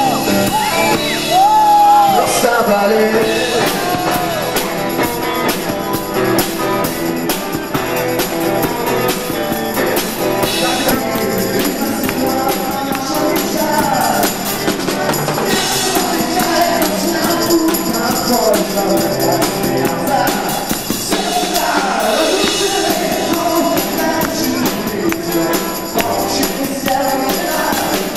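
Live band performing on stage, with singing over the music.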